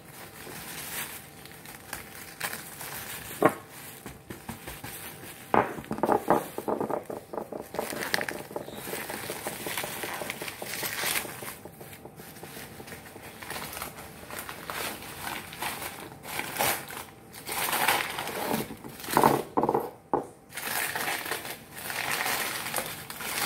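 A hardened baked clay crust around a whole chicken is broken apart by hand, with chunks cracking and crumbling and a couple of sharp snaps in the first few seconds. Later the brown paper wrapping beneath crinkles as it is handled and peeled back.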